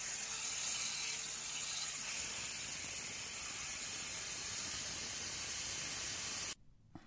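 Waterjet cutter slicing through a 15 cm thick titanium block: a steady high hiss of the jet. It stops abruptly near the end.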